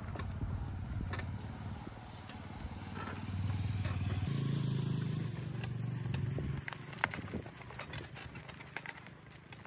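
A vehicle's motor running with a low steady hum as it moves off over a rough dirt road; the hum steps up in pitch about four seconds in and dies away a couple of seconds later, followed by a few sharp knocks.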